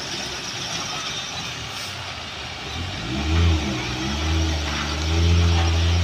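Heavy diesel truck engine: a rushing hiss at first, then about three seconds in the engine is revved up and down, and near the end it runs loud and steady as the truck comes close.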